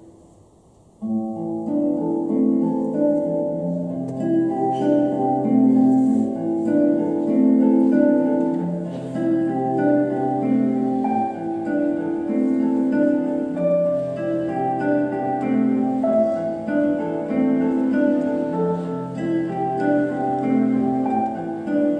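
A previous piece fades out, and about a second in an instrumental piece begins: a gentle melody over slowly changing chords, with no singing.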